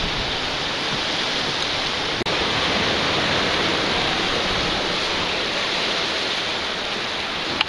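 Sea surf washing against the breakwater rocks: a steady rushing hiss, broken once by a brief dropout about two seconds in.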